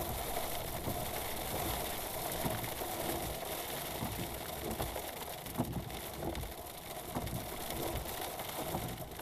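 Rain and hail falling on a stopped car, heard from inside the cabin: a steady hiss with scattered sharp ticks of drops and hailstones striking the roof and windscreen, over the idling engine.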